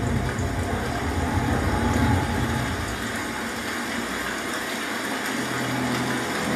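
Ultimea Poseidon D70 soundbar and subwoofer playing a storm-and-rainforest demo soundtrack: a deep thunder-like rumble that fades away over the first few seconds under a steady rush of rain and water, with music coming in near the end.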